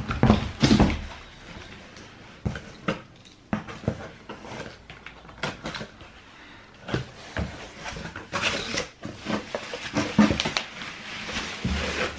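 Packaging being handled: irregular rustling and crinkling of plastic bubble wrap, with scattered knocks and bumps.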